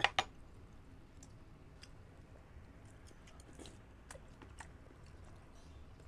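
Close-miked mukbang eating: soft chewing of chicken binakol soup and coconut meat, with a sharp double click near the start and scattered small clicks after it.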